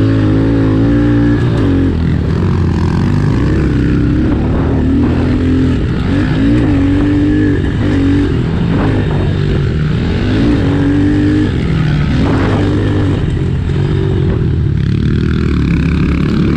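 Honda CRF110F pit bike's small single-cylinder four-stroke engine being ridden hard, revving up and dropping off again and again, every one to two seconds, over a steady low drone.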